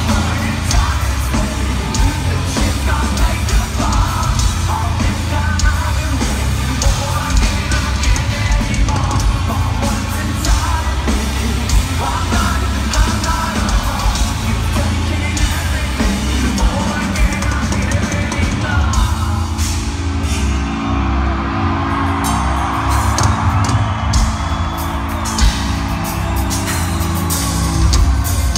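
Live nu-metal band playing at full volume: heavy distorted guitars and bass, a pounding drum kit and shouted, sung vocals. It is heard from the crowd through a phone-style microphone, loud and dense.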